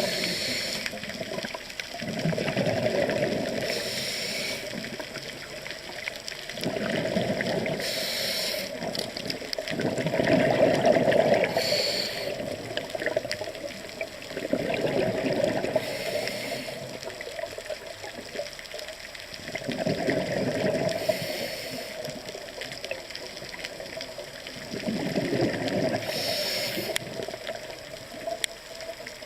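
A scuba diver breathing through a regulator underwater, heard about seven times: each breath is a short hiss, followed by a longer rush of exhaled bubbles. The breaths come every four to five seconds.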